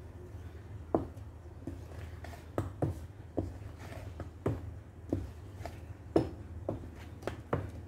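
Wooden spatula knocking and scraping against a metal pot while scooping thick brownie batter, in short irregular clicks about one or two a second over a steady low hum.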